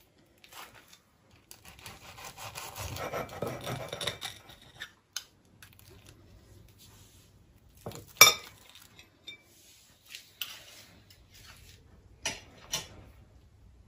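Knife sawing through the crisp fried breadcrumb crust of a potato-coated egg kebab, a scraping rasp lasting a few seconds. A few sharp clinks of knife and fork against the plate follow, the loudest about halfway through and two more near the end.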